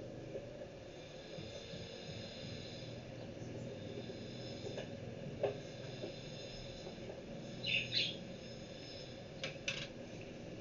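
A bird calling in the background, two short chirps about eight seconds in, over a steady low hum. There is a single light knock about five and a half seconds in and a couple of sharp clicks about nine and a half seconds in.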